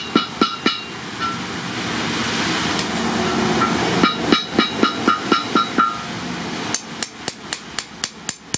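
Hand hammer striking a long steel knife blade on a small post anvil, about four blows a second, each a sharp metallic clank with a short ring. The blows stop for about three seconds near the start, leaving a steady hiss, then come back in two quick runs.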